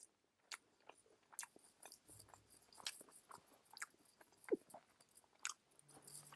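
Faint, close mouth sounds of someone chewing fried noodles: irregular soft wet clicks and smacks, with a sharper one about four and a half seconds in.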